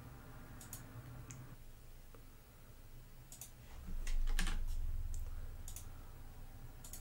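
Computer keyboard typing: a handful of scattered key taps and clicks. About four seconds in comes a low thud with a rumble that is the loudest thing heard.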